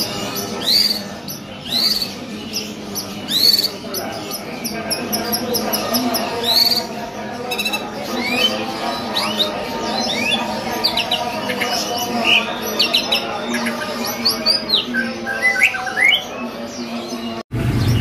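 White-rumped shama (murai batu) singing in full song: a long run of loud whistled sweeping notes, with other caged birds chirping behind it. It cuts off suddenly just before the end.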